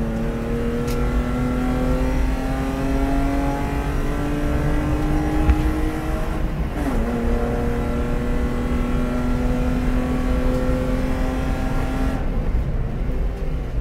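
BMW E36 320i race car's 2.0-litre straight-six heard from inside the cabin, pulling hard uphill with the revs climbing steadily. It shifts up once about halfway, the pitch dropping sharply before climbing again, and the engine note falls away near the end.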